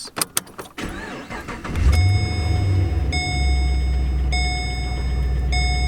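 Holden VE Commodore SS 6.0-litre V8 being started: a few clicks, a second or so of starter cranking, then the engine catches about two seconds in and settles into a steady idle. It sounds smooth with no miss, the cylinder's broken pushrod having been replaced.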